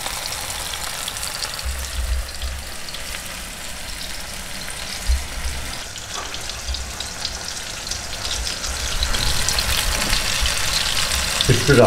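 Tomato slices sizzling and crackling in hot oil in a frying pan. The crackling grows louder near the end as chopped red onion goes into the pan.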